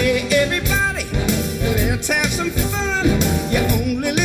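Live country band playing an upbeat rock-and-roll tune on drum kit, electric guitars and fiddle.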